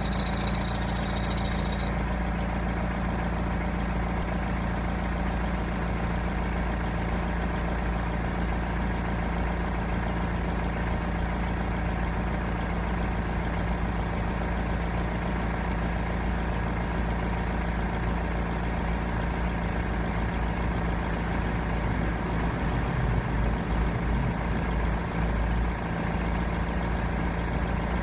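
BMW E90 320d's four-cylinder diesel engine idling steadily. A high whistle, taken for a whistling drive belt, sounds over it and cuts off about two seconds in.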